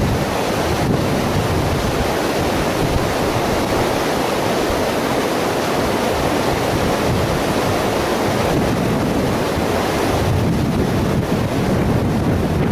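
Airbus A320-214's CFM56 turbofan engines on landing approach, heard from the ground as a steady, broad roar, with wind rumbling on the microphone.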